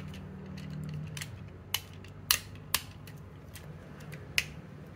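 Plastic parts of a Transformers Studio Series 86 Optimus Prime action figure clicking as hands unclip and shift its panels during transformation: a few soft ticks, then four sharp clicks spread over the last three and a half seconds.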